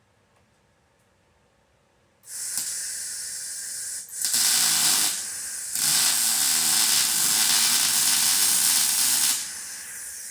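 Steady hissing from arc work on steel rock sliders. It starts about two seconds in, at a moderate level, and gets louder in two runs, the second lasting about three and a half seconds. It then drops to a softer hiss near the end.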